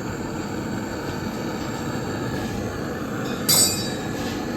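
Steady low mechanical rumble, with a single sharp metallic clink of a tool striking metal about three and a half seconds in.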